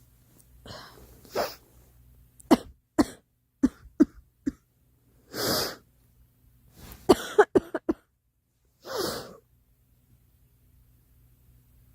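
A girl coughing in two bouts of short, sharp coughs, about two and a half seconds in and again about seven seconds in, with longer hissy breaths or coughs between them.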